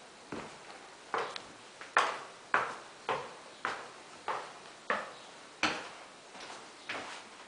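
Footsteps on a hard floor in an empty room: a regular walk of about one and a half steps a second, each step echoing briefly.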